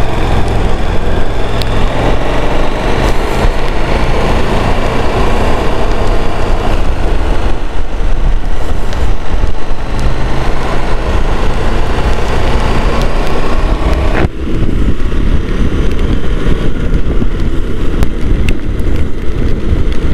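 Motorcycle running at road speed, its engine under heavy wind rush. About fourteen seconds in the sound suddenly turns duller as its higher part drops away.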